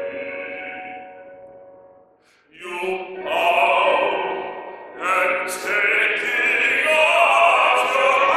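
Musical-theatre singing with accompaniment. A held note fades away over about two seconds, there is a brief pause, and then the singing starts again, growing fuller and louder from about five seconds in.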